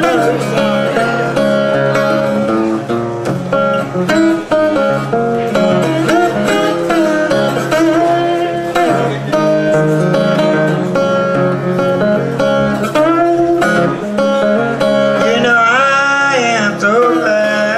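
Acoustic guitar played in a Piedmont country-blues style, with a steady picked accompaniment. A woman's voice comes in singing about three seconds before the end.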